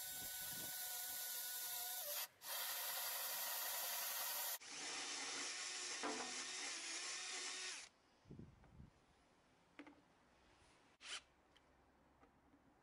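Cordless drill turning a small hole saw through pine, a steady rasping cut that breaks off briefly about two seconds in, changes tone about halfway and stops near eight seconds. A few light knocks follow.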